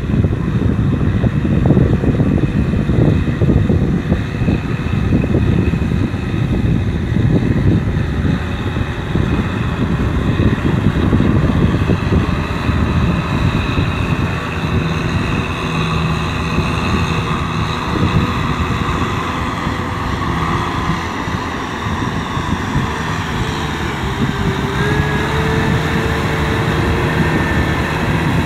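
Kubota M6040SU tractor's four-cylinder diesel engine running steadily under load while it pulls a rotary tiller through flooded paddy mud, puddling the field for rice.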